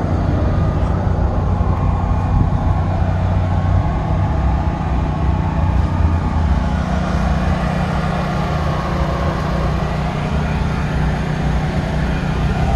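A motor running steadily at a constant speed, a low continuous hum.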